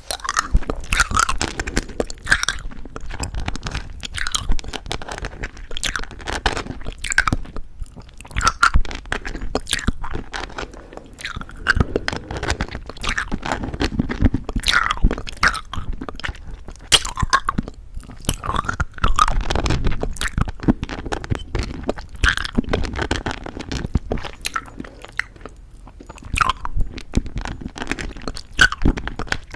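Close-miked chewing of crunchy-coated chewy jelly candy: the sugar shell crackles and snaps between the teeth in irregular clusters, mixed with soft wet chewing of the gummy centre.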